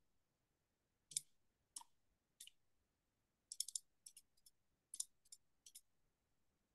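Faint clicks of a computer mouse: about a dozen short, sharp clicks, scattered singly at first and then in quick runs of two or three.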